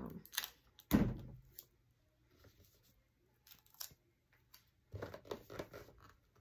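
Clear Scotch tape pulled and torn off a desk tape dispenser, with two sharp sounds at the start and about a second in, then rustling and crinkling near the end as the tape is pressed onto a cardboard gift box.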